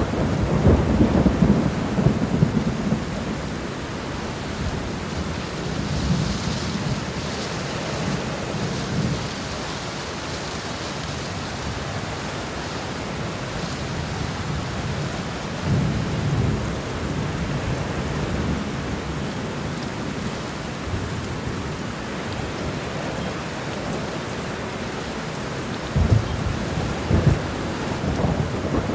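Steady rain falling, with low rolls of thunder rumbling in and out: one at the start, others about six seconds in, around sixteen seconds, and near the end.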